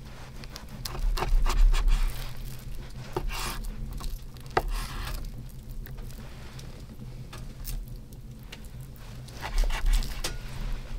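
Knife slicing through raw pork on a wooden cutting board: irregular scrapes of the blade through the meat and knocks as it meets the wood, busiest about a second in and again near the end.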